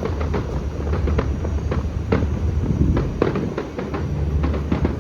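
Fireworks going off: many sharp bangs and crackles at irregular intervals, over a steady low rumble.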